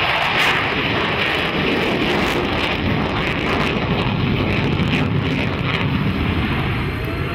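Jet aircraft engine noise, a steady rushing sound, with wind on the microphone.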